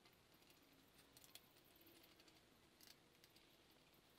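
Near silence with a few faint small clicks as the lower oil pan's bolts are handled and threaded by hand.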